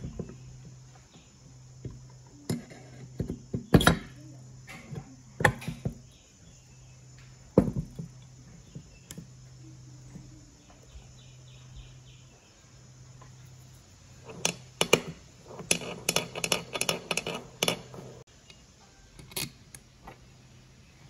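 Scattered knocks and clinks of a chainsaw crankcase and small metal parts being handled and fitted together, with a run of quick rattling clicks in the last third, over a steady low hum.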